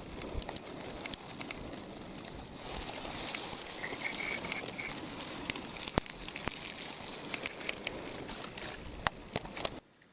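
Mountain stream water running with a steady hiss, with scattered clicks and knocks over it. The hiss grows louder about two and a half seconds in and cuts off abruptly near the end.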